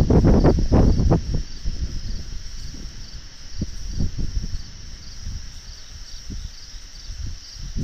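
Night chorus of crickets: a steady high trill with a regular pulse repeating a little under twice a second. Loud low rumbling noise fills the first second and a half, then a few faint low thumps.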